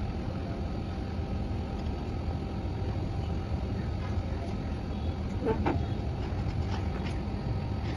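Steady low outdoor background rumble, with a brief faint wavering tone about five and a half seconds in.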